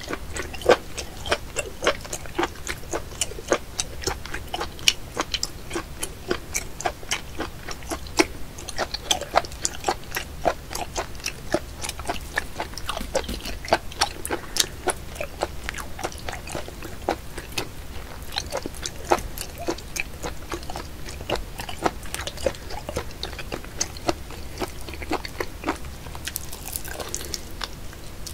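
Close-up chewing and slurping of a raw live small octopus, a dense run of wet, sticky smacks and clicks, several a second.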